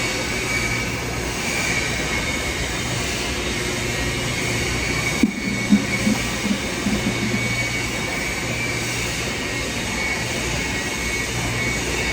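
TIG (argon) welding arc running on a steel pipe-to-flange joint: a steady hiss with an underlying hum, briefly broken about five seconds in by a short dip and a few low knocks.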